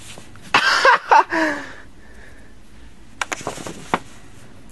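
A cat scrambling on a sheet of stiff poster board while batting a popcorn kernel: the board flaps and rustles loudly about half a second in, then there is a quick cluster of scratches and taps around three seconds in.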